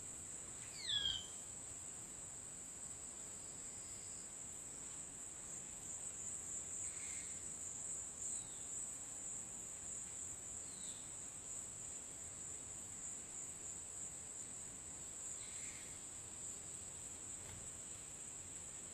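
Steady high-pitched insect drone of crickets or cicadas. About a second in there is a short, loud descending bird call, and a few faint short calls and chirps follow later.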